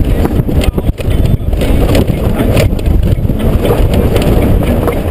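Honda GoldWing GL1500's flat-six engine running while the bike rides over a loose gravel track, with wind buffeting the helmet-mounted microphone and frequent knocks from stones and bumps.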